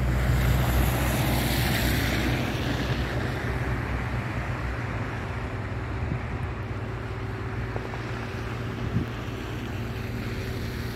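Road traffic on a slushy, snow-covered street: tyres hissing through slush over a steady low engine hum, the hiss swelling as a car passes in the first couple of seconds and then easing, with wind on the microphone. No siren is heard.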